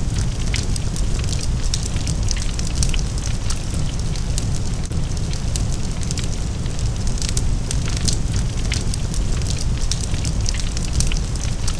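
Large fire burning: a constant deep roar with plenty of low end, peppered with sharp crackles and pops of burning wood.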